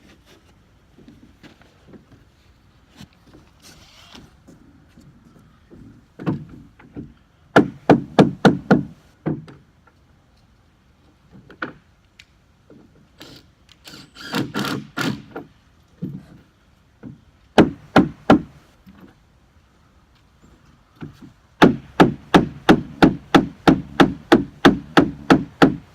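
Hard rubber mallet knocking a composite deck board sideways to seat it tight on its hidden fasteners: short runs of quick blows, ending in a long run of about fifteen strikes at roughly four a second.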